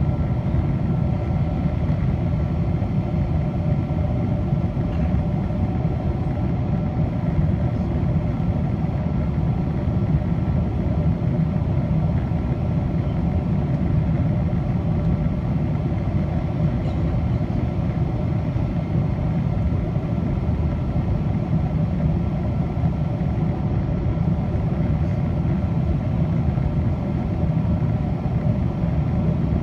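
Steady cabin noise inside a Boeing 777-200 airliner in flight: a low roar of airflow and jet engines, with a few faint steady tones above it.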